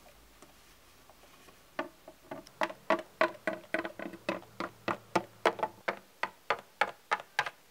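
Hard plastic Littlest Pet Shop figurine tapped step by step on a wooden surface to make it walk. The clicks start about two seconds in and keep a steady pace of about three to four a second.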